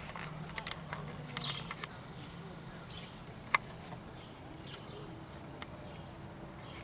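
Outdoor ambience with faint chirps of small birds, a few soft clicks and one sharp click about three and a half seconds in, over a steady low hum.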